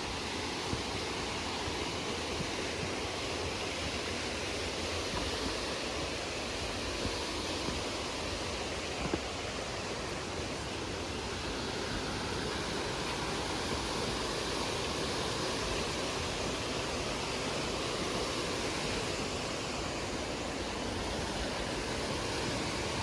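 Steady rushing of a waterfall, an even roar of falling water that holds level throughout.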